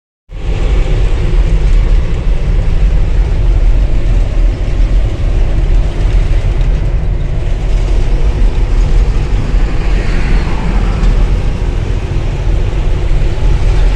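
Heavy diesel vehicle running steadily with a deep, continuous low rumble.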